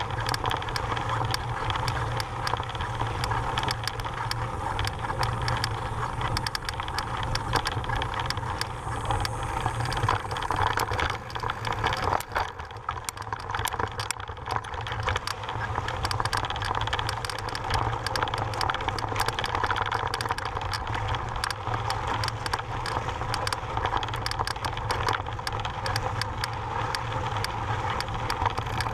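Mountain bike rolling over a loose, rocky gravel trail: a constant rattling and clicking from the bike and its tyres on the stones, over a steady low rumble.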